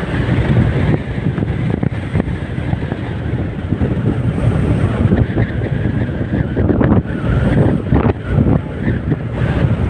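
Strong wind buffeting the microphone, over the rush of big waves on a lake.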